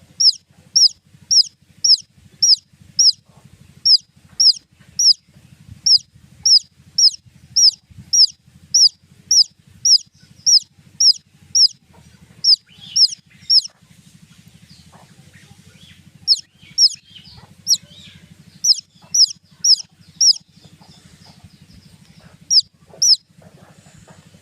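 Baby chicks peeping: short, high chirps that slide down in pitch, about two a second, stopping twice for a couple of seconds.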